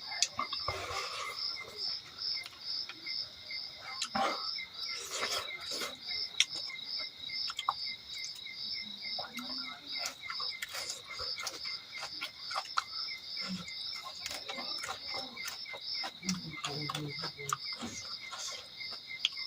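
Insects chirping steadily, an even pulsed high chirp about three times a second, over soft eating sounds and scattered small clicks.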